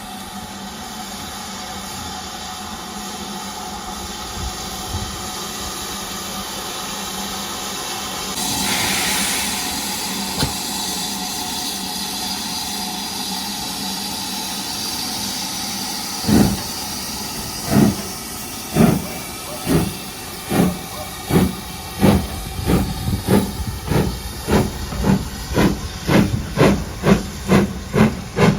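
Steam locomotive standing with a steady hiss of steam, and a louder rush of steam about nine seconds in. Past the halfway point it starts away: its exhaust chuffs begin slowly and quicken to about two or three a second as the train pulls out.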